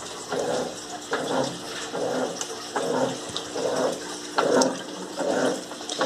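Electrolux Turbo Limpeza LM08 top-loading washing machine agitating a full tub: water sloshing and swishing in a regular rhythm, about one surge every half-second to second, as the agitator turns back and forth.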